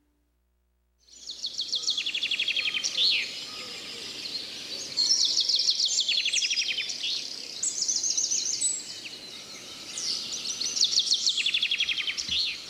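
Wild songbird singing: repeated phrases of fast trilled notes with quick downward-sweeping notes, starting about a second in, over a faint steady outdoor background hiss.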